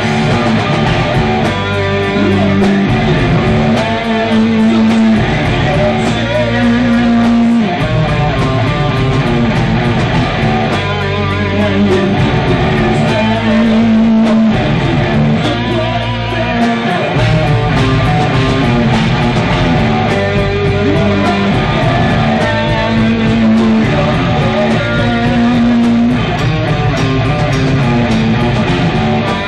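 Metal band playing live: electric guitars, bass guitar and drums, heard from the auditorium of a theatre.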